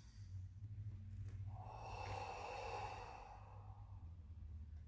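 A slow, controlled breath in a martial-arts breathing exercise: one long, faint exhale starting about a second and a half in and lasting about two seconds. A steady low hum runs underneath.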